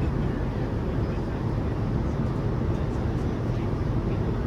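Steady cabin noise of a Boeing 787-9 in flight: a constant low rumble of airflow and engines heard from inside the cabin.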